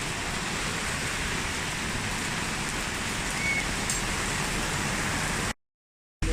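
Steady rain falling, an even hiss of drops on surfaces. Near the end it cuts out to dead silence for under a second, then comes straight back.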